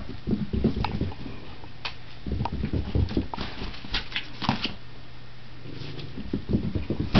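A puppy scrabbling, scuffling and thumping on carpet as it spins and tumbles in a frenzy, in uneven bursts of soft pattering knocks and brief scrapes.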